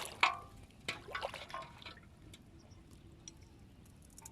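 Water splashing and dripping: a few sharp splashes and drops in the first second and a half, then fainter scattered drips.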